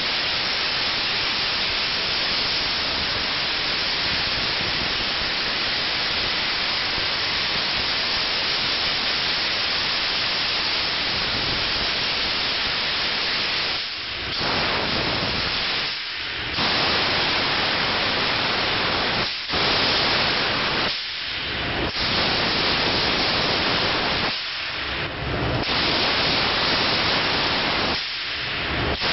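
Optima Steamer steam wash gun hissing steadily as it jets steam onto a car's body and wheels. In the second half the hiss cuts out briefly several times and comes straight back.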